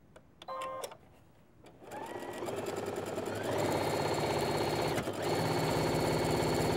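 Brother sewing machine starting about two seconds in, its whine rising as it comes up to speed, then stitching steadily along a seam, with a brief stop about five seconds in before it runs on.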